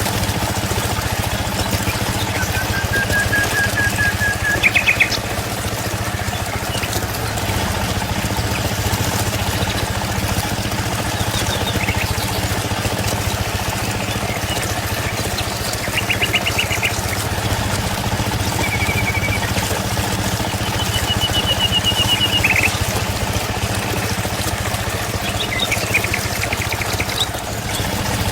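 Birds calling in short chirps and trills several times, over a steady low hum and constant background noise.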